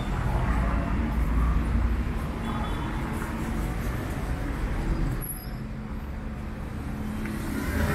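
Street traffic: a motor vehicle's engine running close by with a steady low hum, dropping away suddenly about five seconds in.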